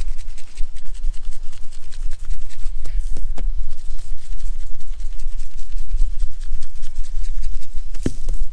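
Plastic seasoning shaker shaken over a rack of raw spare ribs, the dry rub rattling out in bursts with a few sharp taps, over a steady low rumble.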